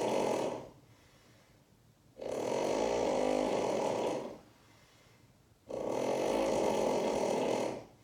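A person snoring: long snores of about two seconds each, repeating every three and a half seconds or so, with quiet breaths between. One snore fades out just after the start, and two full ones follow from about two seconds and just under six seconds in.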